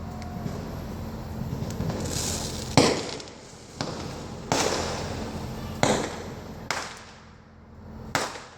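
Aerial fireworks shells bursting overhead: about six sharp bangs spread over several seconds, each followed by an echoing rumble, the loudest about three seconds in.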